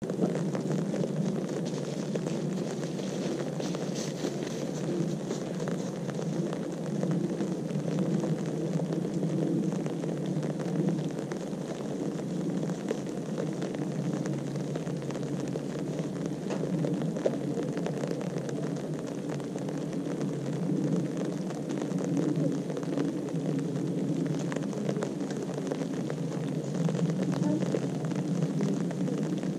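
Wind buffeting the microphone: a steady low rushing noise that swells and eases a little.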